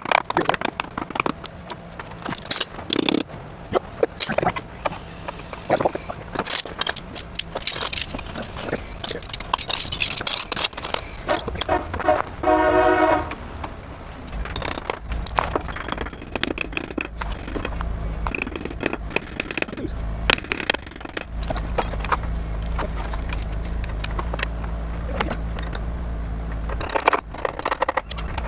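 Hammer blows and metal knocks and scrapes as fasteners are driven out of a sailboat rudder's fittings, with a short pitched sound near the middle. A steady low hum comes in about halfway through and holds to the end.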